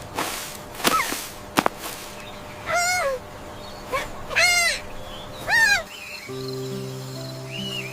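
Cartoon sound effects: a few quick swishes, then three rising-and-falling animal calls, chirp-like. Soft background music with held notes begins about six seconds in.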